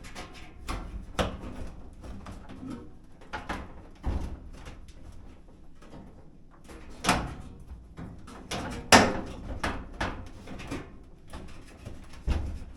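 Irregular knocks and clunks of a GE dryer's front panel being worked back onto the cabinet over the drum. The hits are loudest about seven and nine seconds in.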